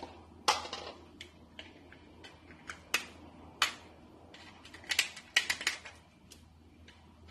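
Kitchen scissors snipping and scraping inside an opened crab's top shell: irregular sharp clicks of the blades and shell, a few of them louder.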